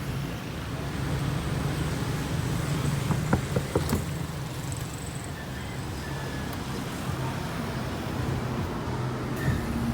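Steady low engine drone of a moving vehicle, with a few short knocks about three to four seconds in.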